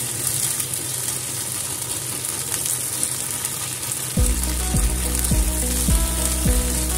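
Onions and ginger-garlic paste sizzling in hot oil in a kadhai, stirred with a wooden spatula while the paste is fried until its raw taste cooks out. About four seconds in, background music with a steady beat and a deep bass comes in over the frying.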